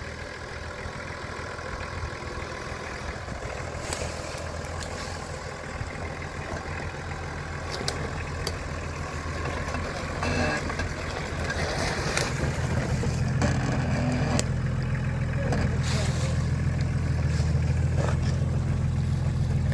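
Nissan Patrol Y60 off-roader crawling over a steep dirt bank, its engine running steadily at low revs and growing louder from about halfway as the vehicle comes close. A few sharp knocks sound along the way.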